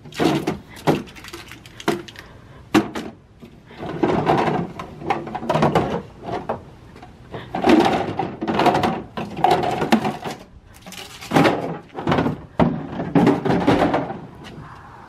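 Hollow moulded-plastic toy car parts being handled, knocked together and set down on a truck tailgate: a steady run of thunks, knocks and scraping rustles.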